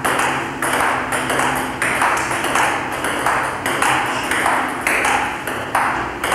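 Table tennis rally: the celluloid ball clicking off the paddles and bouncing on the table in a steady rhythm, about two hits a second, over a faint steady hum.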